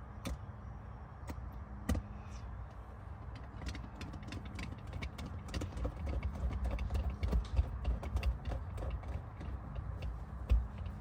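Screws being put back in by hand while car audio parts are refitted: a run of small clicks and taps, thickest in the middle, over a low steady rumble.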